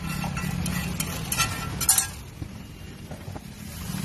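Sharp metal clinks of utensils at a street-food iron griddle, the two loudest about a second and a half and two seconds in, with a few lighter clicks, over a low steady rumble of road traffic.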